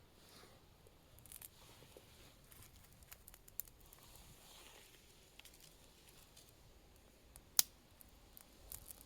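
Faint rustling and scraping with scattered small clicks, and one sharp click about seven and a half seconds in.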